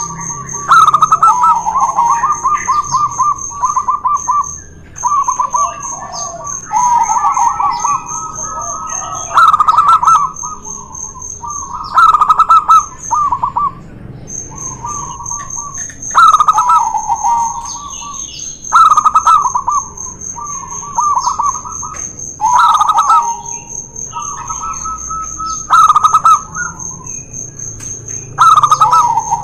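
Zebra doves (perkutut), a local and a white one, cooing in turn: repeated stuttering coo phrases that come loudest about every three seconds and overlap one another.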